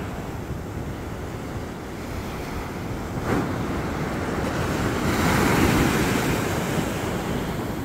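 Ocean surf washing up the beach, a wave swelling and breaking about five seconds in, with wind rumbling on the microphone.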